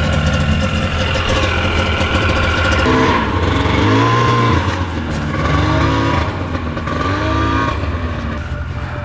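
Snowmobile engine running and revving up and down several times from about three seconds in, as the machine is driven to free it from deep snow where it is stuck.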